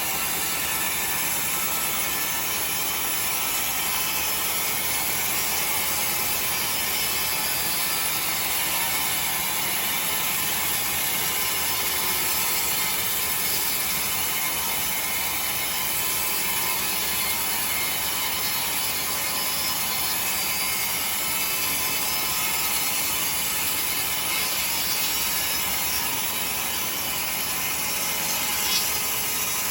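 Sawmill saw running through timber: a steady, noisy, high-pitched cutting sound, with a brief click near the end.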